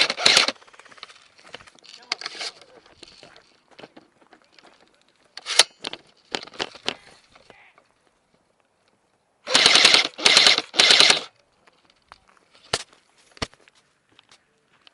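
DBoy SCAR-L airsoft electric gun (AEG) firing full-auto bursts: one burst ending about half a second in, a shorter cluster of shots about halfway, and three loud bursts in quick succession about two-thirds in, with a few sharp single cracks after.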